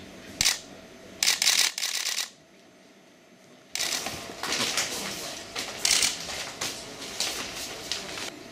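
Irregular rustling and crinkling handling noise, as of wrapped packages being moved, with a short quiet gap about two and a half seconds in.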